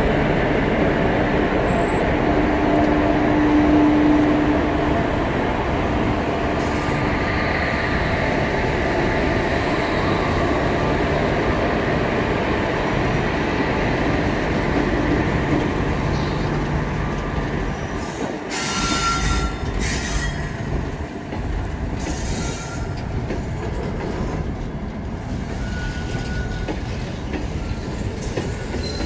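Indian Railways electric locomotives of a goods train passing close by with a steady hum, followed by a long line of covered freight wagons rolling past, their wheels clattering over the rail joints. Brief high metallic screeches from the wheels about two-thirds of the way through.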